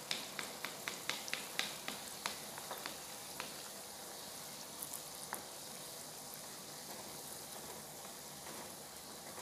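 Gulab jamun balls deep-frying in oil on a low flame, stirred with a wooden spatula: a steady sizzle and hiss, with a run of sharp crackling ticks over the first three seconds or so.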